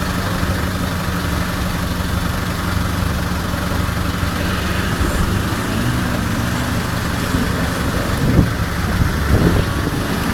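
Off-road 4x4's engine running steadily at low revs, its note wavering a little from about six seconds in, with a few short knocks near the end.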